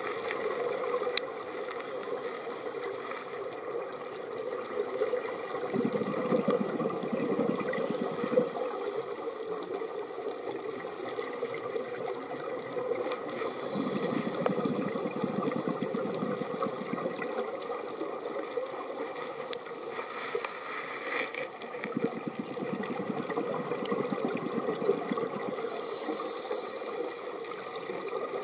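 Underwater sound of a scuba diver breathing: the regulator's exhaled bubbles rumble twice, each for a few seconds, over a steady water hiss with a few scattered sharp clicks.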